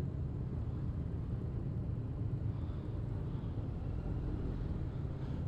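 Motorcycle engine running at a steady, even speed while riding, a low drone with a haze of road and wind noise.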